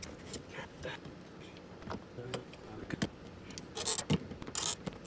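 Small clicks and clinks of plastic and metal parts being handled and fitted together, with three louder scraping rustles in the last second and a half.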